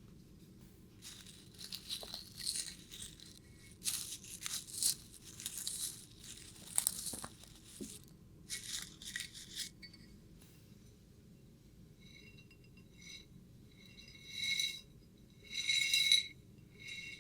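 Crinkling, crackling handling noise in irregular bursts for several seconds. It is followed by a few short bursts of ringing, glassy jingling that are loudest near the end.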